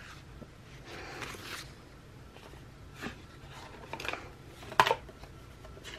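Paper and stationery being handled at a desk: a soft rustle of paper, then a few light taps and clicks, the sharpest near the end.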